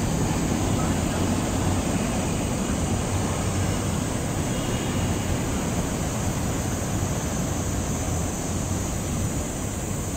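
Steady roar of city street traffic, an even rushing noise with no single vehicle standing out.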